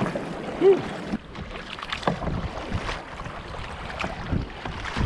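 Kayak paddle strokes dipping and splashing in choppy sea, with wind buffeting the microphone. There is a brief vocal sound less than a second in.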